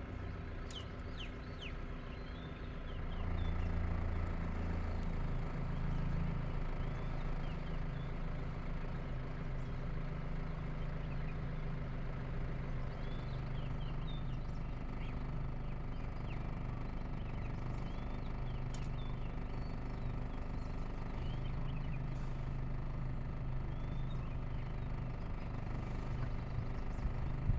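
A vehicle engine running steadily, stepping up a little about three seconds in, with many short bird chirps scattered over it.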